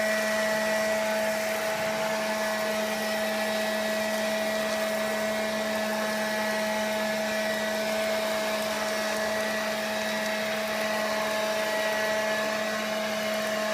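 Small vacuum cleaner running with a steady whine, sucking up a lop-eared rabbit's fur.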